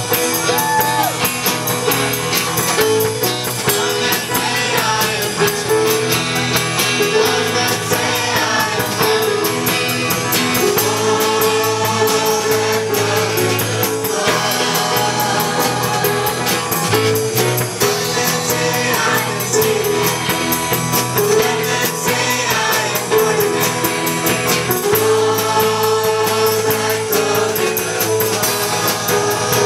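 Church choir and band performing a praise song live: group singing over instruments with a steady beat.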